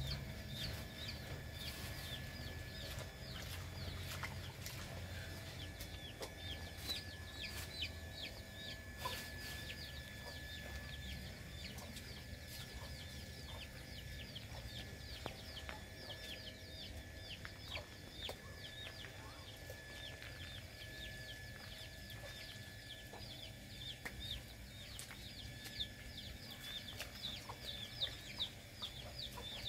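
Chickens calling in a yard: a busy stream of short, high cheeping calls, several a second, with clucking.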